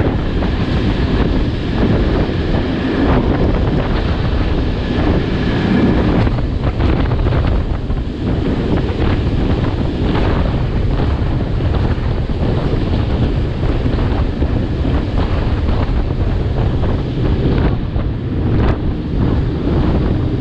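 Heavy wind buffeting the microphone over a steady low rumble, with scattered short knocks.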